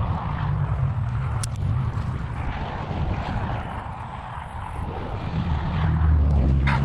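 Low steady engine rumble of a passing vehicle, swelling louder about six seconds in, with a single sharp click about a second and a half in.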